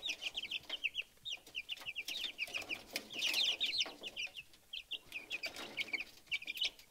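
A brood of Rhode Island Red chicks peeping: a steady stream of short, high-pitched chirps, many a second and overlapping, with some soft rustling among them.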